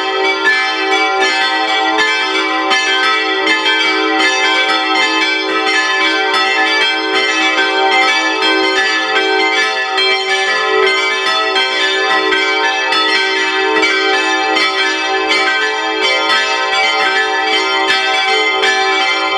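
Full peal of five bronze church bells from the Rincker foundry, tuned e'' g'' a'' c''' d''', swinging and striking continuously in a dense, overlapping jumble of strokes at a steady level. The peal rings in a church service.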